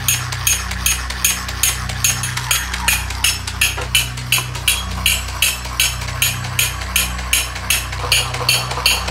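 Toy cymbal monkey clapping its small metal cymbals together over and over, a steady clash about three times a second, with a steady low hum underneath.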